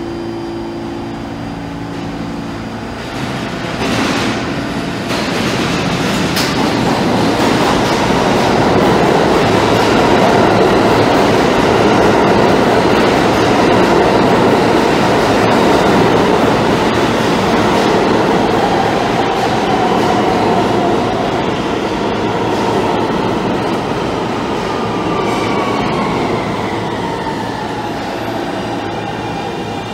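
R160 subway train pulling into an underground station: the rumble builds as it approaches, with sharp clacks of wheels over rail joints about four seconds in. It runs by loudly, then a whine falls steadily in pitch over the last several seconds as the train brakes toward a stop.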